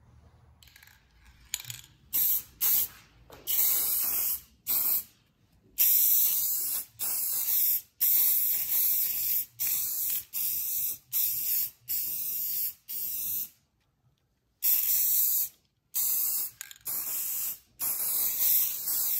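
Aerosol spray paint can spraying in a long series of short hissing bursts, each up to about a second long, with a short pause about two-thirds of the way through.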